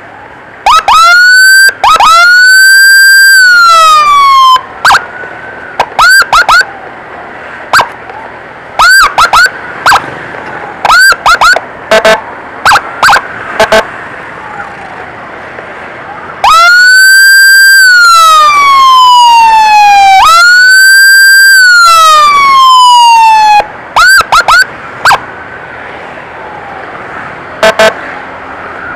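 Electronic emergency siren, very loud, clearing traffic for an ambulance. It gives bursts of short rising chirps, and twice a pair of long wails that climb and then slowly slide down in pitch: once early on and once past the middle.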